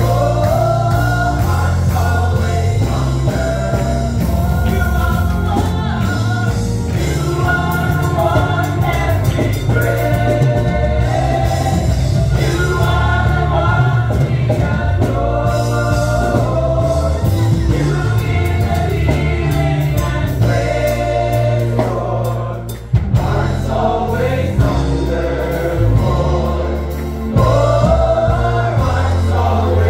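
Gospel praise team and choir singing a worship song over a band with a strong bass line. The music dips briefly about three quarters of the way through.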